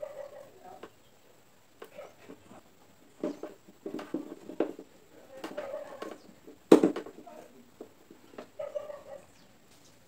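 Clicks and knocks of a fan motor's stator coil and metal housing being handled and fitted back together, in scattered bunches, with one sharp knock about two-thirds of the way through.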